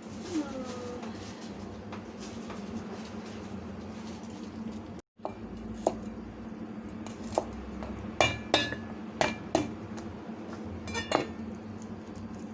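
Kitchen utensils clinking against pots and dishes: a run of sharp, ringing clinks in the second half, over a steady low hum. The sound cuts out for an instant about five seconds in.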